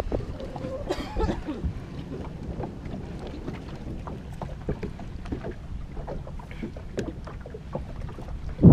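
Wind on the microphone and small waves slapping against the hull of a small fiberglass boat, with scattered light clicks and taps. A louder gust of rumble near the end.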